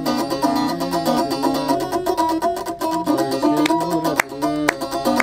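Kissir, the Nubian lyre, plucked in a melody. Near the end, hand claps join in, about two a second.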